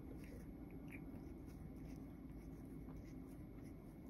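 A cat grooming, licking its raised front paw: faint soft licking and tongue clicks, a couple of them more distinct near the start and about a second in, over a steady low hum.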